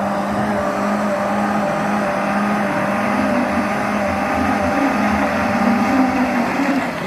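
Diesel truck engine working hard at steady high revs on a slippery uphill climb, a loud, even drone.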